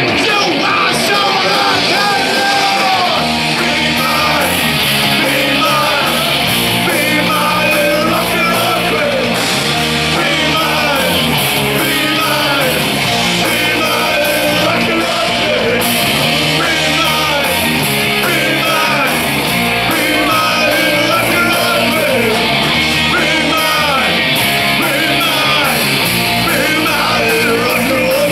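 Live rock band playing loud: distorted electric guitar, bass and drums in a repeating heavy riff, with a singer yelling over it.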